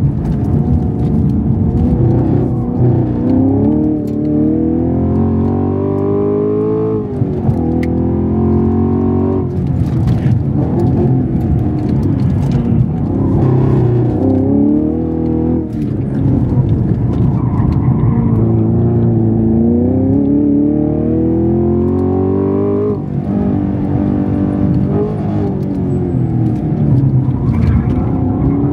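Chevrolet Camaro SS 1LE's 6.2-litre V8 heard from inside the cabin under hard acceleration on track. The revs climb in long rising sweeps and fall back sharply several times between them.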